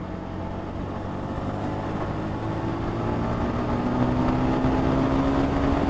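Yamaha XSR155's single-cylinder engine pulling steadily under acceleration, its note rising slowly and getting louder, over low wind rumble on the helmet-mounted camera mic.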